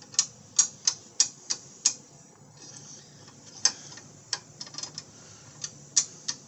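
Thin sheet-metal edge guide of a Ryobi circular saw clicking against the saw's base as it is rocked in its slot: sharp clicks about three a second, a pause about two seconds in, then more uneven clicks. The clicking is the play of a guide bar only about 2 mm thick, which the owner calls wobbly.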